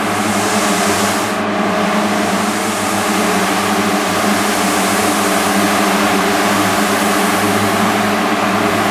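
Synthesizer drone music: a steady stack of low sustained tones under a loud wash of hiss, with the hiss dipping briefly about a second and a half in.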